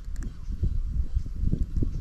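Wind buffeting the microphone: a gusty low rumble that swells and drops.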